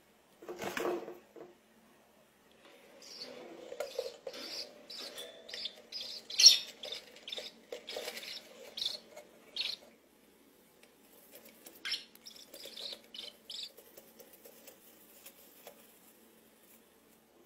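Budgerigars chirping: many short, high chirps in two runs, with one louder chirp near the middle. A brief scuffing noise about a second in.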